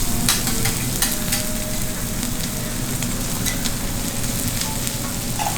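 Kobe beef sizzling as it fries on a hot griddle, with frequent sharp clicks of the chef's metal utensils against the cooking surface.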